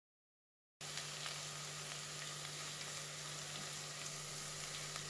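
Diced onion sizzling in olive oil in a non-stick pot: a steady frying hiss with a few faint crackles, cutting in abruptly about a second in.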